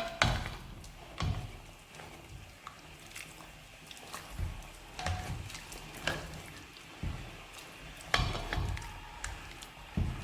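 Kitchen handling noises: a scatter of knocks and clinks from utensils and containers around a cooking pot, the loudest near the start, about a second in and about eight seconds in.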